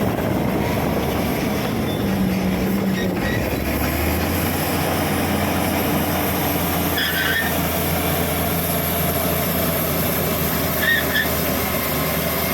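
Shantui SD16E bulldozer's diesel engine running steadily, with its low hum growing stronger about three seconds in. Two brief high squeaks come, one around the middle and one near the end.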